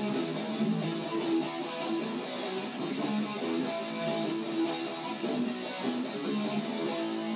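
Electric guitar played through an amplifier, strumming chords with notes held and ringing.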